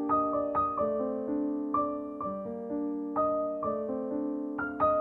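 Background piano music: single struck notes, about two a second, ringing on over held lower notes.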